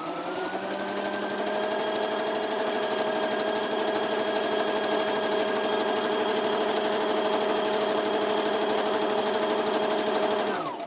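Brother XL-2250 household sewing machine running steadily as it sews, a smooth hum with its motor whine and fast needle rhythm, then winding down and stopping near the end. It runs evenly without knocking, a sign that the knocking and braking fault on zigzag has been cured.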